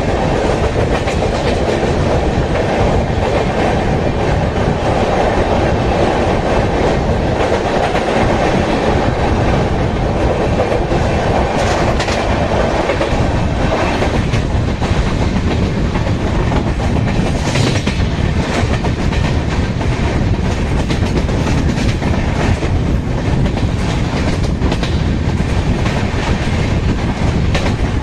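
Karaikal Express coaches running at high speed, heard from an open coach door: a steady rumble of wheels on rail with clickety-clack over the joints. A strong mid-pitched roar in the sound thins out about halfway through.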